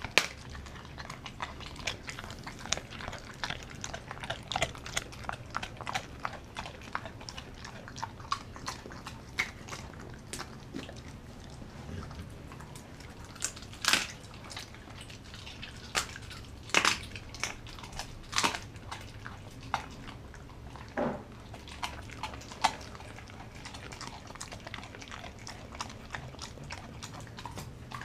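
A dog eating raw meat from a bowl: steady wet chewing and biting with many sharp clicks, and a handful of louder crunches in the second half.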